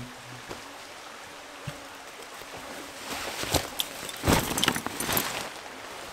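Camping gear being handled: a run of rustling and clinking from about three to five seconds in, over a steady hiss.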